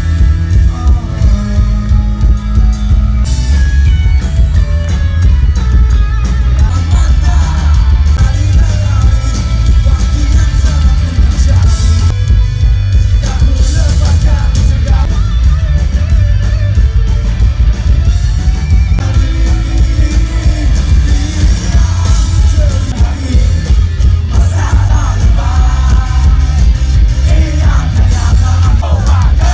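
Live rock band playing loudly, with electric guitars, bass, drum kit and a singer, the bass heavy in the mix.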